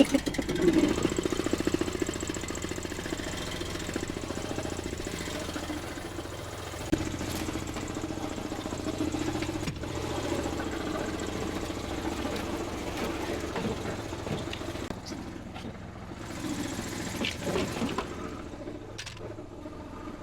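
An engine idling steadily with an even, rapid pulse. A few sharp clicks or knocks sound over it along the way.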